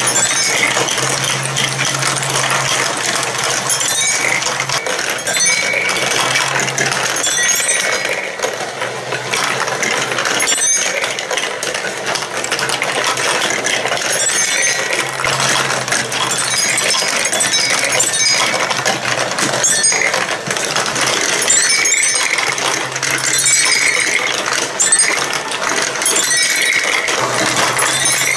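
Plastic balls rolling and clattering continuously through a plastic block marble run, clicking against tracks, bowls and each other, with the hum of the run's battery-powered lift motor coming and going underneath.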